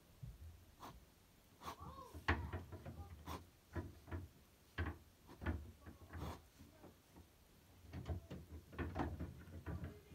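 Fine-tipped drawing pen making quick flicking strokes on paper, a rapid irregular series of short scratches and light taps as spiky hair is inked line by line.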